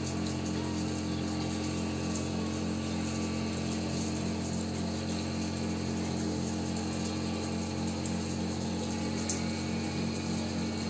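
Cotton candy machine running steadily, its motor-driven spinning head giving an even, unbroken hum.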